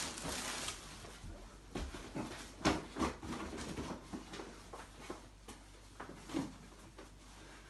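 Clothes and plastic bin bags rustling as a man rummages through them and pulls on a garment, with a few scattered sharp clicks and knocks.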